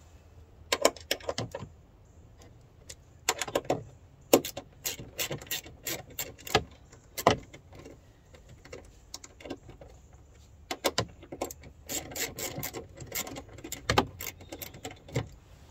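Ratchet clicking in several short bursts of rapid clicks, with metallic clinks, as the door check strap's mounting bolts are tightened down firmly.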